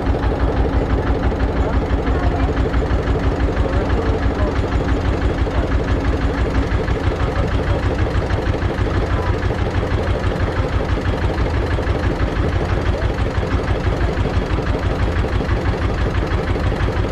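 Small fishing boat's engine running steadily with a rapid, even pulsing beat.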